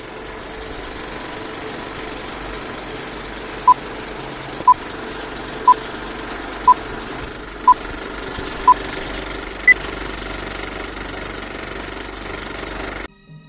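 Vintage film projector running with a steady clatter and crackle under a film-leader countdown: six short beeps of the same pitch, one a second, then a single higher beep. The projector noise cuts off suddenly near the end.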